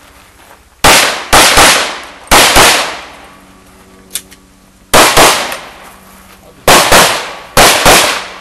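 Handgun fired rapidly at targets in a practical shooting stage: about eleven loud shots, mostly in quick pairs, each trailing off briefly, with a pause of about two seconds in the middle.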